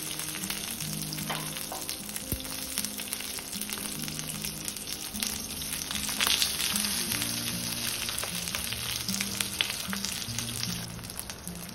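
Pomfret shallow-frying in oil on a hot tawa, the oil sizzling and crackling steadily, under soft background music of low held notes.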